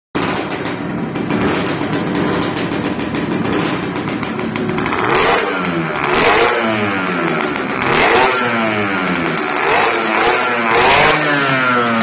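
Puch Maxi moped's two-stroke Z50 engine, tuned with a 72cc Airsal cylinder, a Dellorto UA19S carburettor and a Proma CC expansion-chamber exhaust. It idles, then from about five seconds in is revved in five quick throttle blips, each dropping back in pitch as it returns toward idle.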